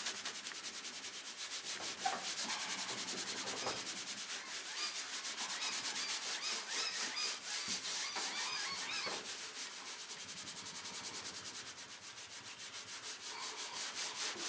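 A rag dampened with wax and grease remover rubbed briskly back and forth over a painted pickup door, in quick, even strokes. The solvent is wearing back hand-painted lettering to make it look aged.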